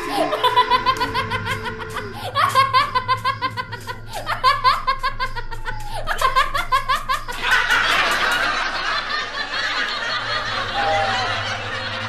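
High-pitched laughter in several quick fits of rapid, repeated cackles, each a second or so long, in the first half. A denser, softer stretch of sound follows in the last few seconds.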